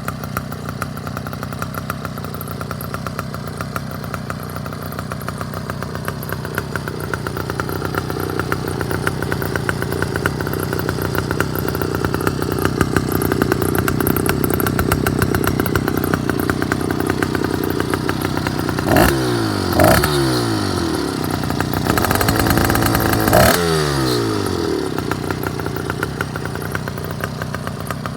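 Two-stroke motorized-bicycle kit engine idling with a fast, even crackle. About two-thirds through it is blipped twice, the pitch shooting up and dropping back, then revved and held high for a second or two before settling back to idle.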